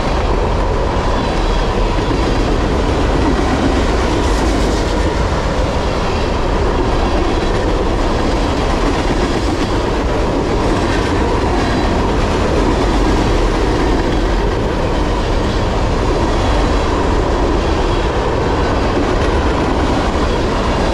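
Loaded freight cars of a trash train rolling past: a loud, steady rumble and rattle of steel wheels on rail, with some clickety-clack and a faint steady ring from the wheels.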